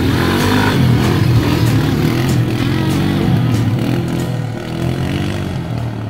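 Small youth ATV's engine running and being revved, its pitch rising and falling.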